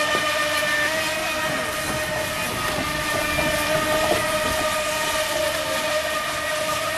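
Electric motor of an FT009 remote-control racing boat whining at a steady high pitch as the boat runs at speed across the water.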